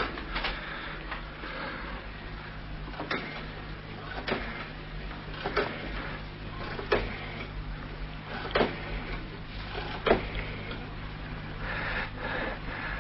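A series of single sharp knocks or clicks, spaced about a second and a half apart, over a steady low hum from an old radio-drama recording.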